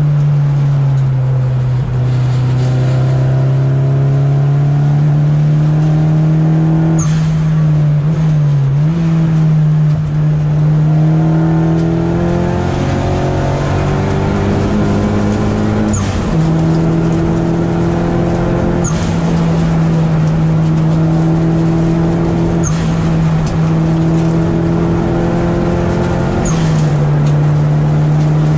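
Nissan 200SX engine running under way, heard from inside its stripped, roll-caged cabin. The engine note holds fairly steady but steps down and up in pitch several times as the revs change, with a few short sharp ticks over it.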